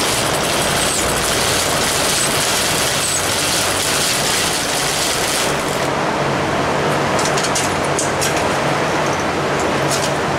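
Steady rush of a large shop fan running throughout. For about the first five seconds it is joined by the Motobecane moped being pedalled hard on its stand, its two-stroke engine turned over with the decompressor open but not firing. After that come a few light clicks and knocks.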